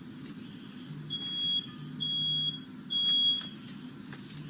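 Smoke alarm sounding three high, steady beeps of about half a second each in quick succession, set off by firework smoke filling the room.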